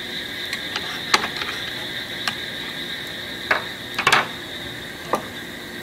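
Metal spatula and tongs clicking and scraping against a ridged grill pan as grilled paneer slices are lifted off, with a handful of sharp clicks and the loudest cluster about four seconds in. A steady, high insect chirring runs underneath.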